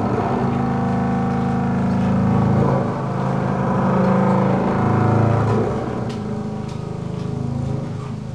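Low bowed string notes on a large upright string instrument, held as a rich, buzzing drone that swells and fades several times.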